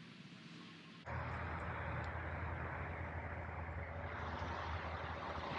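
Steady highway traffic noise, a continuous rush with a low rumble, which jumps abruptly louder about a second in.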